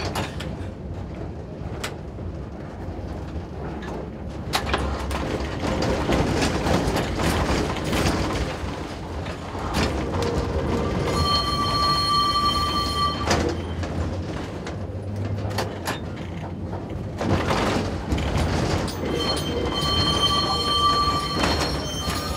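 Tram running on rails, heard from inside the driver's cab: a steady running rumble with wheels clattering and knocking over the track. About halfway through and again near the end, a high wheel squeal is held for about two seconds each time.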